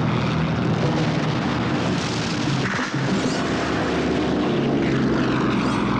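Propeller aircraft engines droning as warplanes fly low overhead, a dense, loud rushing noise with a brief dip about three seconds in.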